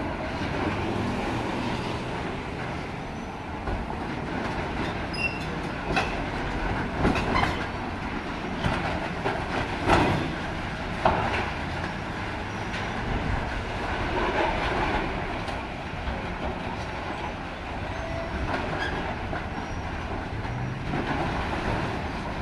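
Hydraulic demolition excavators working on a metal-clad building: steady diesel engine rumble with scattered metallic clanks and crunches of sheet metal and steel being torn and dropped, the loudest about halfway through. Road traffic passes alongside.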